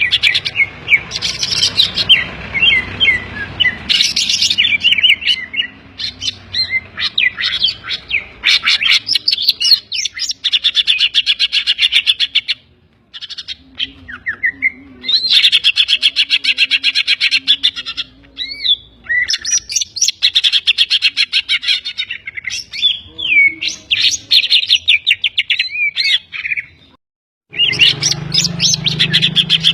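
Green leafbird (cucak ijo) singing loudly in long runs of rapid, high chirps and trills broken by brief pauses, its song filled with mimicked calls of the kapas tembak and tengkek.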